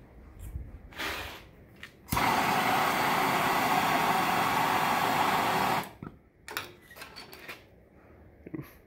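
Bernzomatic hand torch on a yellow MAP gas cylinder lighting with a click about two seconds in, then burning with a steady, loud hiss of flame for nearly four seconds before it is shut off abruptly.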